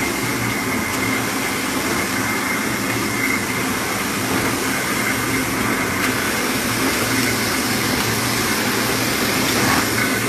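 1988 Kluge EHD 14x22 foil stamping press running steadily, an even mechanical hum and hiss with a faint constant high whine.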